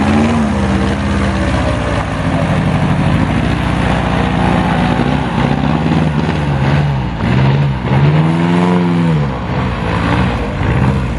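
Airboat engine and propeller running loud, its pitch rising and falling several times, most sharply about eight to nine seconds in.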